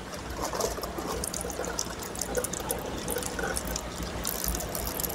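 Water being drained off, trickling and dribbling unevenly, with small clicks and taps scattered through.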